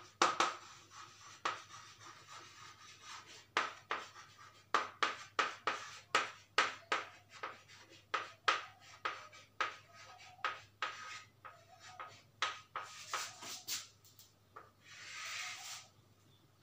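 Chalk writing on a blackboard: an irregular run of sharp taps and short scratches as letters are formed, with a softer, longer rasp near the end.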